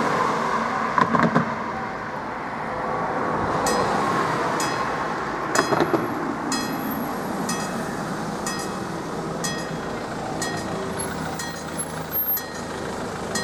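Road traffic hum with a car passing, then about four seconds in a level-crossing warning bell starts striking, about once a second, as the crossing's red lights come on ahead of an approaching train.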